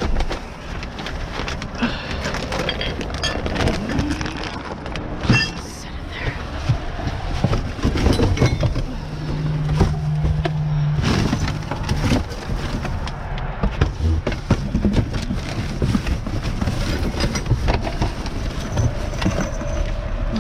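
Rummaging through trash in a dumpster: bags rustling and hard objects knocking and clattering as they are moved around. A steady low hum comes in for about two seconds midway.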